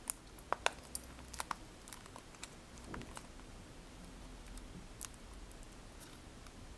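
Fingers and fingernails handling a BlackBerry Curve 9360 still in its protective plastic film, picking at the film and giving small sharp clicks and taps on the plastic. A quick run of clicks comes in the first second and a half, then scattered single ones.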